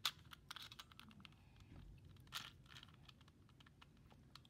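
Faint plastic clicks and clacks of a 2x2 puzzle cube's layers being turned by hand. A louder clack comes right at the start and another about two and a half seconds in.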